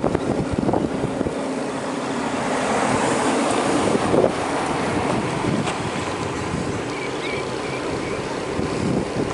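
Wind buffeting the microphone over a steady rush of ocean surf.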